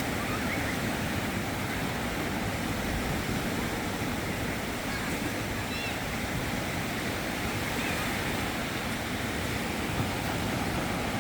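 Sea surf washing steadily onto a sandy beach.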